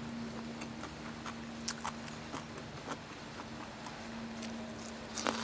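Close-miked chewing of crispy pork crackling: scattered crisp crunches and mouth clicks, with a louder cluster of crunches near the end, over a faint steady hum.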